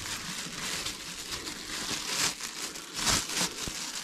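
Thin clear plastic wrapping crinkling and rustling as it is pulled off and handled, with a few louder crackles about three seconds in.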